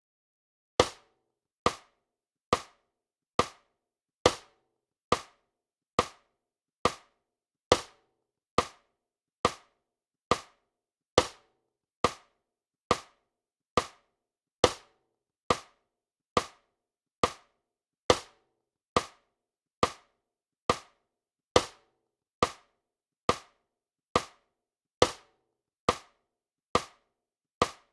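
Metronome click track from score-playback software, ticking evenly about 70 times a minute with sharp, short clicks and silence between them.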